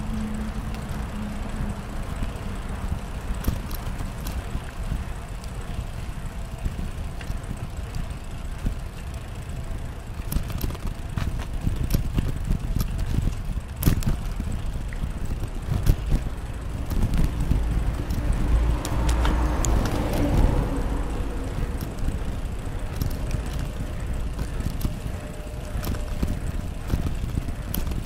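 Wind rushing over the microphone on a moving bicycle, with scattered clicks and rattles from the bike. About two-thirds of the way in, a humming sound swells and fades.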